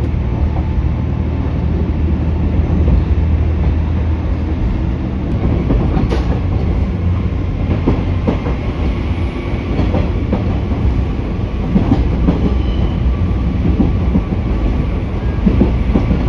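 Inside a JR West KiHa 47 diesel railcar under way: the diesel engine runs with a steady low drone, and the wheels click and clank over rail joints and pointwork, more often from about six seconds in.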